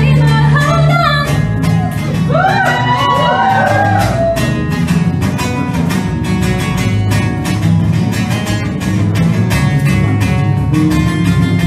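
Live pop song played by a small acoustic band: a woman sings a phrase over strummed acoustic guitar, electric guitar and cajon with cymbal. After about four seconds the voice stops and the guitars and percussion carry on with steady strumming and beat.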